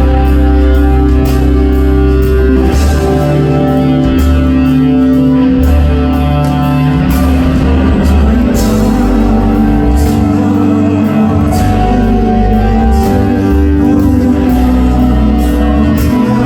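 Live band playing a song passage with bass, guitar and drums, with some singing heard in places.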